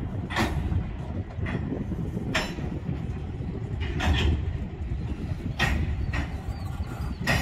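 Open hopper railcars rolling slowly over a road grade crossing: a steady low rumble of wheels on rail, broken by sharp wheel clacks about every second or two.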